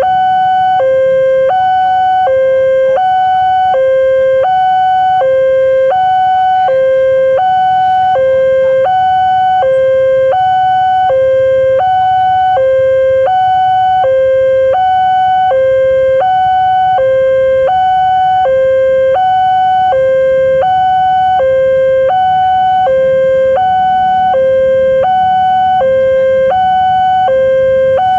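Railway level-crossing electronic warning alarm sounding a steady two-tone, alternating a low and a high tone about every 0.7 s, the signal that a train is approaching and the barriers are down.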